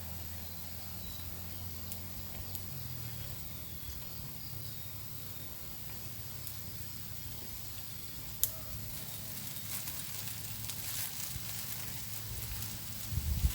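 Steady outdoor hiss over a low hum, with scattered light crackles and ticks and one sharp click about eight and a half seconds in.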